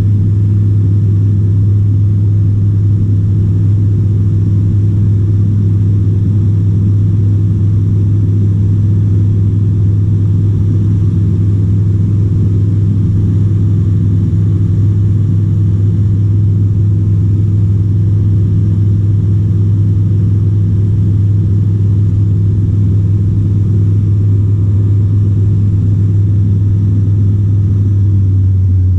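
Dynamic WT9 light aircraft's piston engine and propeller running steadily in flight, heard from inside the cockpit as a loud, unchanging low drone.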